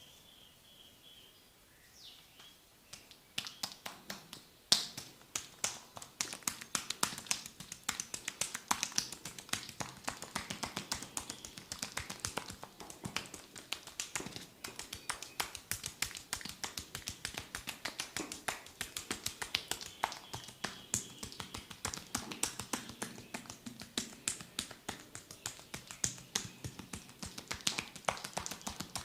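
Percussive massage strokes on a body: a fast, uneven run of sharp taps and slaps, several a second, starting about three seconds in.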